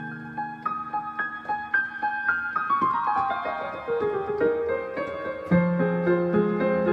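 Piano music: single notes repeat in the upper range, then a quick descending run of notes falls through the middle of the keyboard, and a louder low chord comes in about five and a half seconds in.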